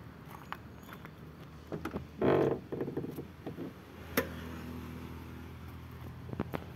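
A sharp metallic click about four seconds in as the front door of a 1990 Toyota Kijang is unlatched and opened, with a few softer clicks near the end. About two seconds in there is a louder, short pitched sound of unclear source.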